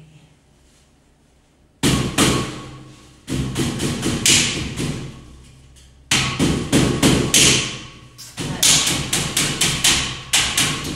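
Hammer knocking sideboard parts into place in quick runs of blows, several a second, beginning about two seconds in, with short pauses between runs.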